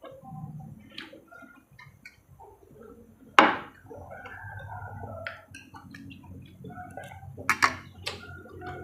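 Close-miked eating sounds: chewing and wet mouth noises, broken by sharp clicks of cutlery or glass, the loudest about three and a half seconds in and two more near the end.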